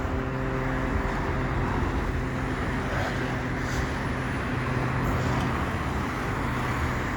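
Steady road traffic noise with a continuous low engine hum from a nearby motor vehicle.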